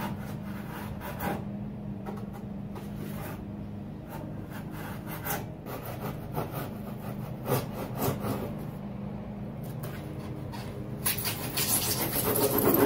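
Fine-toothed drywall saw cutting through rigid foam insulation board in irregular rasping strokes, which come faster and louder near the end.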